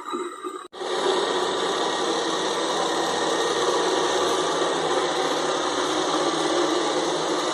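iRobot Roomba 675 robot vacuum running, a loud steady machine noise from its vacuum motor and brushes. The noise starts abruptly after a brief dropout under a second in.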